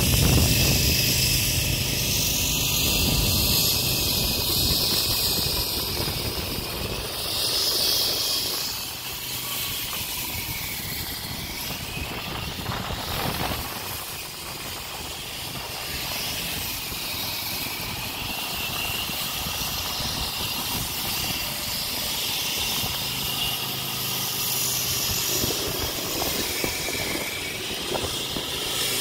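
Concrete saw cutting sidewalk concrete, running with a steady high whine, while cars pass on the road with a low rumble that swells now and then.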